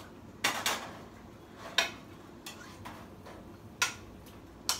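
Stainless steel pots and a metal utensil clinking and tapping on the stove: a handful of short, sharp metal clinks, spaced irregularly.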